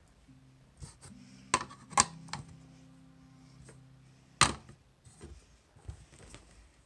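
A clear serving bowl clinking and knocking as it is set down and shifted on a hard plastic feeding tray: a few sharp knocks, the loudest about two seconds in and again near the middle.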